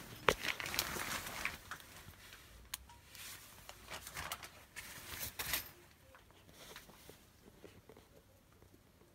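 Handling noise close to the microphone: fabric rustling with a few sharp clicks and knocks, the loudest just after the start, dying away to a faint hiss a little past halfway.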